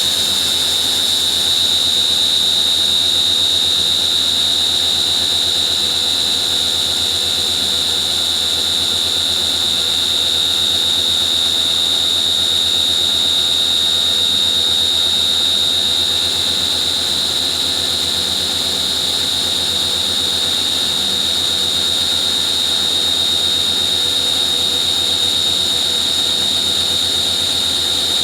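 Spindle of a 2001 Fadal VMC15 vertical machining center running at a steady speed: a loud, steady high-pitched whine with a low hum underneath.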